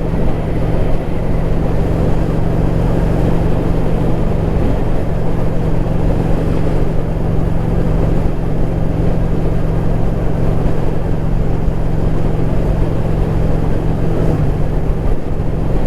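Steady driving noise of a vehicle: a constant engine drone with tyre and road rumble underneath.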